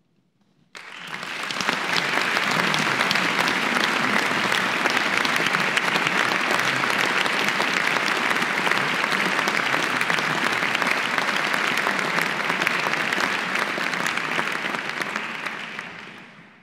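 Audience applauding after a choral performance: the clapping breaks out suddenly after a moment of near-silence, holds steady, and fades away near the end.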